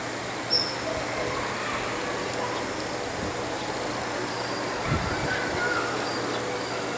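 Female Daurian redstart giving a single short, thin, high call about half a second in, with fainter high notes later, over a steady low background hum. A brief low thump comes near the five-second mark.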